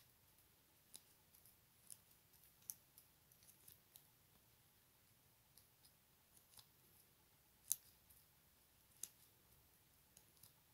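Faint, scattered small clicks and ticks of hand tatting: the plastic shuttle and cotton thread passed and snapped taut between the fingers as filling stitches are made. A sharper click about eight seconds in and another about a second later stand out.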